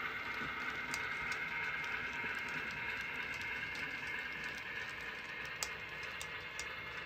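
Model railroad freight cars rolling along the track: a steady rolling hiss of metal wheels on the rails, with scattered light clicks as the wheels pass rail joints.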